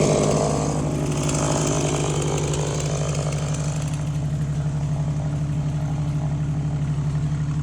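An engine idling steadily with an even pulse. A rushing noise fades away over the first few seconds.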